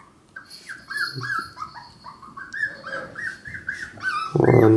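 Cavalier King Charles spaniel puppy whining and yelping over and over in short high cries, about three a second, at being shut out. A louder, lower cry breaks in near the end.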